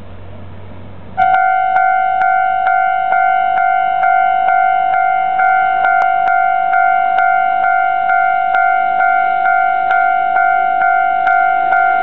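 Japanese railway level-crossing warning bell starting up about a second in and ringing steadily at about two strikes a second, signalling that a train is approaching.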